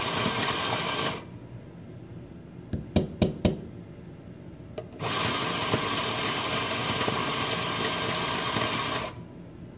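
Eureka Atom espresso grinder running, stopping about a second in, then a few sharp taps, then running again for about four seconds. It is a short purge of grounds after a grind-setting change, followed by grinding the dose.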